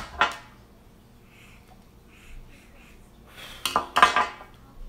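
A phone and other hard objects knocked and set down on a glass tabletop: a short clatter right at the start, a quiet stretch with a few faint taps, then a louder cluster of clattering knocks with a little ringing about three and a half to four and a half seconds in.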